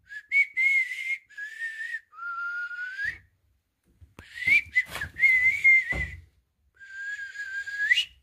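A person whistling a tune by mouth in short breathy phrases, with a few sharp clicks and a low knock about six seconds in.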